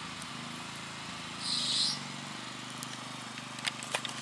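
Garden ambience: a steady low hum runs underneath, and a short high-pitched chirp sounds about a second and a half in. A few sharp clicks come near the end.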